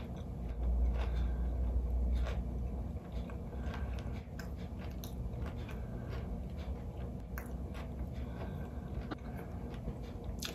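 Close-miked chewing of crispy fried fish, with scattered crunches and wet mouth clicks. A low rumble runs through the first few seconds.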